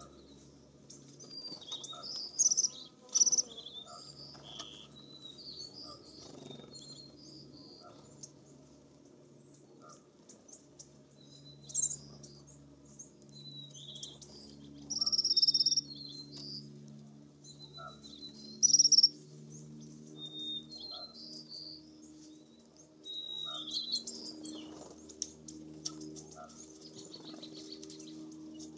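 A flock of American bushtits twittering: many short, high, thin calls throughout, with a few much louder calls, the longest about halfway through. A faint low hum runs underneath.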